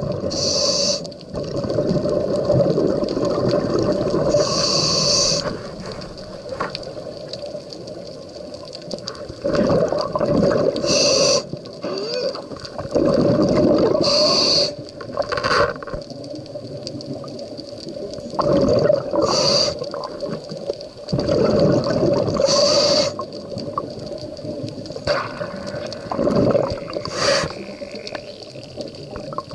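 Scuba diver breathing through a regulator underwater: a hiss on each inhale alternating with a rumble of exhaled bubbles, repeating every few seconds over a steady hum.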